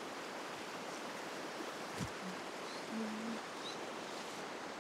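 Steady rush of flowing river water, with one sharp click about two seconds in.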